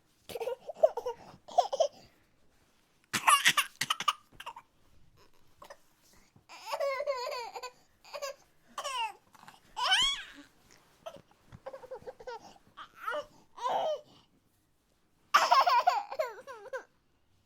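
Exaggerated comic sobbing and wailing from one voice, in about six separate bursts with short gaps; some cries slide up in pitch.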